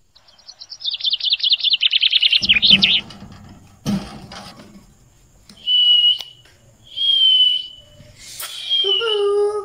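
Caged budgerigars chirping in a fast chattering trill for about three seconds, with a couple of dull knocks, then three short steady whistles, the last dropping into a lower call near the end.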